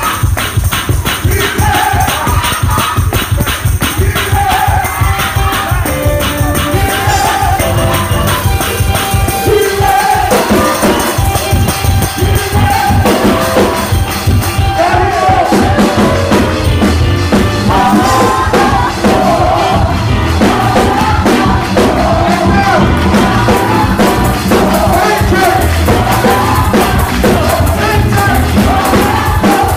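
Live gospel music: voices singing over a keyboard and bass, driven by a fast, steady shaken-percussion beat.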